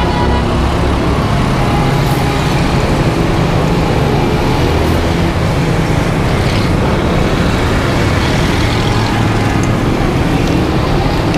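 Steady road traffic noise from a busy street, with vehicle engines running.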